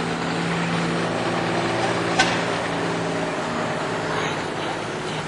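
Old truck engine running steadily as the truck passes, its hum fading somewhat in the second half. A sharp click comes about two seconds in.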